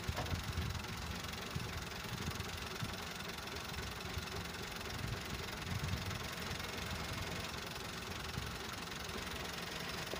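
Tractor diesel engine running steadily at idle while the tractor stands with its tipping trolley raised.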